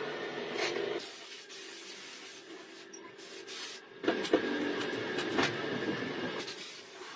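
A machine running steadily, with several sharp knocks about four to five and a half seconds in.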